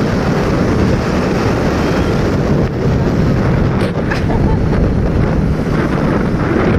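Wind rushing over the microphone on a moving motorcycle: a steady, loud noise that buries the engine and road sound.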